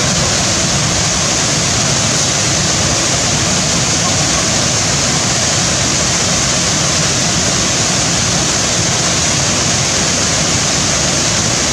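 Waterfall pouring into a pool: a loud, steady rush of falling water that does not change.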